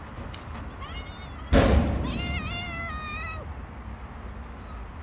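Young tabby-and-white street cat meowing to be fed: a short rising meow about a second in, then a longer meow with a wavering pitch. Between the two comes a sudden loud burst of noise, the loudest sound here.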